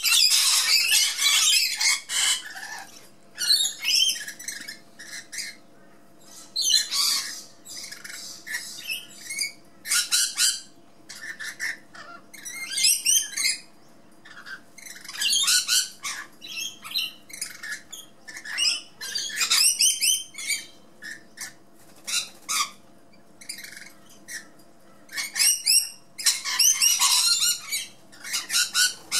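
Rainbow lorikeet squawking and screeching in repeated harsh bursts, with short pauses between calls.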